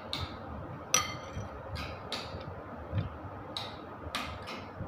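A metal spoon clinking and scraping against a ceramic bowl while scooping soft meat filling: a series of irregular light taps, with one sharp ringing clink about a second in.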